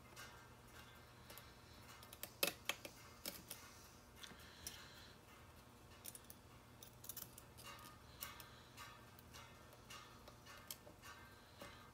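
Lock pick and tension wrench clicking against the pin tumblers of a Euro-cylinder challenge lock being picked: faint, irregular small metal ticks, with a louder pair of clicks about two and a half seconds in.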